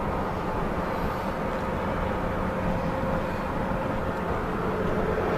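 Steady road and engine noise heard from inside a moving car's cabin at highway speed, with a faint steady hum.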